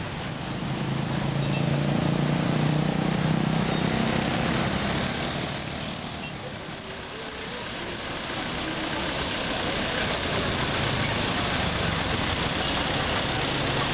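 Street traffic noise of cars and motorbikes. A nearby engine hums low and steady for the first few seconds, then fades away about six seconds in, leaving a steady wash of traffic.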